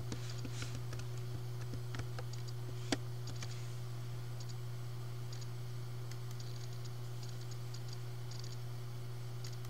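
Computer keyboard keystrokes as a short file name is typed, followed by a few sparser clicks. A steady low hum runs underneath.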